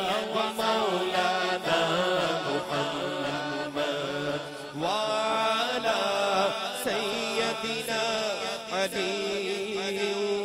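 A man's voice chanting Durood (salawat) through a microphone and PA, drawing the words out in long melismatic notes over a steady low hum.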